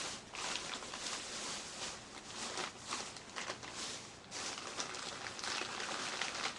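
Plastic soft-bait packages crinkling and rustling as they are handled, in irregular bursts.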